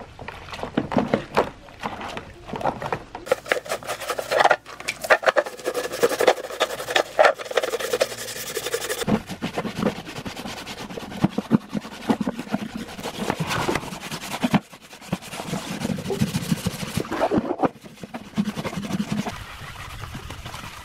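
Hands splashing and rubbing rusty metal fan parts in a basin of soapy water, then, from about nine seconds in, a brush scrubbing the wet metal fan base and blades in quick, scratchy strokes.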